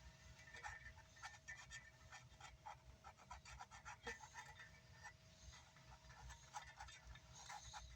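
Faint scattered scratches and light taps of a glue bottle's tip rubbing around a subwoofer cone as glue is run on, over a faint steady tone.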